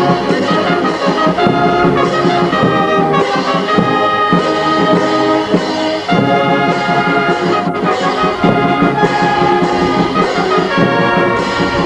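Italian town brass band playing a tune: trumpets, tubas and euphoniums, with a bass drum and cymbals.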